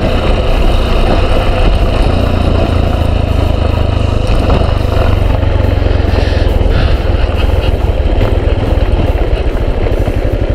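Yamaha XTZ 250 Lander's single-cylinder four-stroke engine running steadily as the motorcycle rides along a dirt road.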